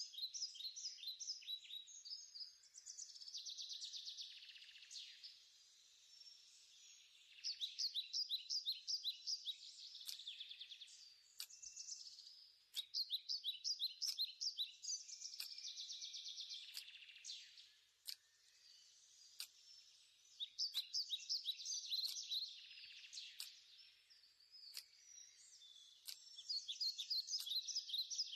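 Faint, high-pitched chirping calls in quick trains that recur every few seconds, with sharp ticks in between.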